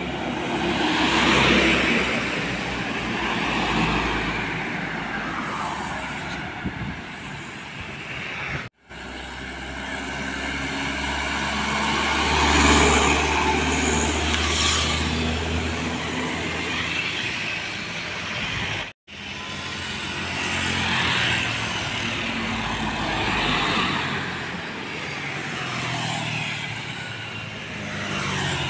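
Trucks and motorcycles driving past close by on a highway: several pass-bys swell and fade, with engine hum and tyre noise whose pitch bends as each vehicle goes by. The sound breaks off abruptly twice, about a third and two-thirds of the way through.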